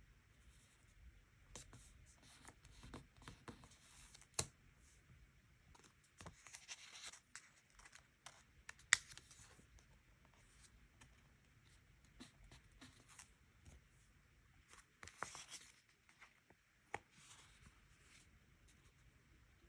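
Faint desk sounds of diary journaling: scattered light taps and clicks of pen and stationery on paper, with two brief papery rustles about six and fifteen seconds in.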